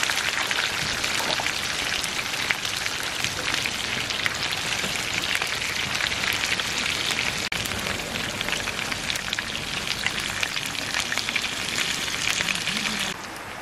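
Beef intestines (gopchang and daechang) sizzling and spitting in their fat on a hot griddle pan, a dense crackle that dips briefly about halfway and drops off just before the end.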